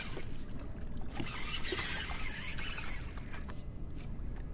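Choppy water slapping against a small boat's hull, with two stretches of high hiss, the longer one lasting about two seconds from about a second in.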